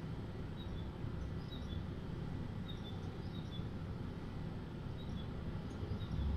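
Faint short, high chirps of small birds outside, several times and some in quick pairs, over a steady low hum of room noise.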